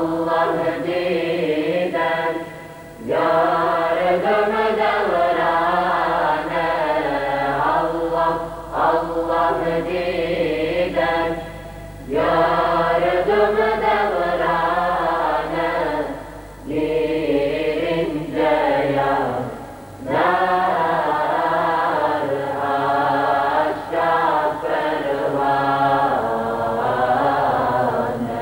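Mixed choir of young men and women singing a Bosnian Islamic devotional hymn in long phrases, with short breaks for breath between them; the phrase ends near the end.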